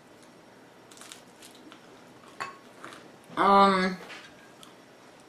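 Eating sounds: a few light clicks and clinks of a spoon against a ceramic bowl while crusty bread is chewed. About three and a half seconds in comes a short, loud pitched vocal sound lasting about half a second.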